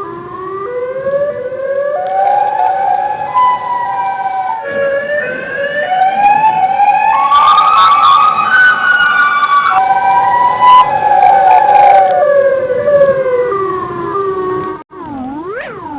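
Outdoor tornado warning siren sounding a wail: its tone climbs in steps to a high peak about halfway through, then steps back down. Near the end it cuts abruptly to a fast warble, the pitch sweeping up and down over and over.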